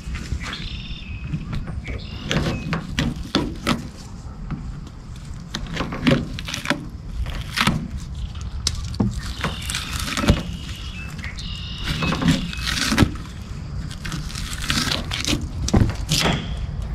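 Repeated knocks and clinks of tools on metal parts of a stern drive under repair, with a few short high squeaks.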